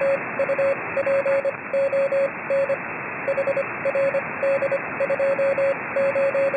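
Morse code (CW) tone keyed in a run of dots and dashes over a steady hiss, like a CW signal heard through a shortwave receiver.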